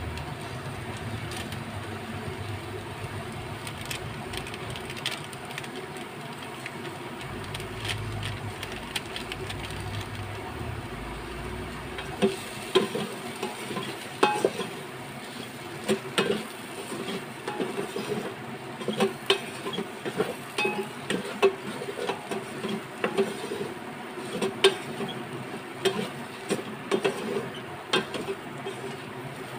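A wooden spatula stirring frying okra and onions in the metal inner pot of an electric rice cooker, with a faint sizzle throughout. From about twelve seconds in, the spatula scrapes and knocks against the pot about one or two times a second.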